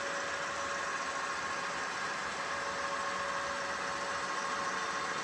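HO scale model train running on its layout: an even rolling hiss with a steady high whine.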